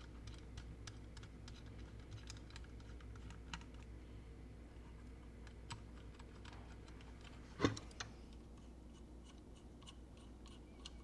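Small screwdriver driving tiny screws to fasten a circuit board, heard as scattered faint clicks, with a louder click about seven and a half seconds in and another just after. A low steady hum runs underneath.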